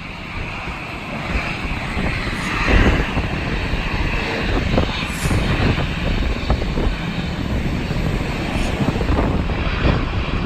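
Airliner jet engines running steadily with a high whine over a deep rumble, and wind buffeting the microphone.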